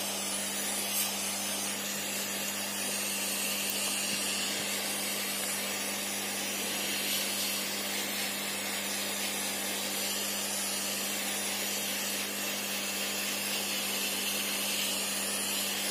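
Hot air gun blowing steadily on a phone's glass back panel: a continuous airy hiss with a steady low hum from its fan.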